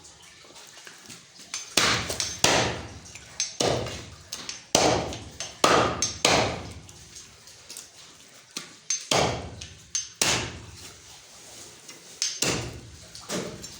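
A butcher's knife chopping through goat legs: about ten sharp strikes at uneven intervals, with a longer pause midway.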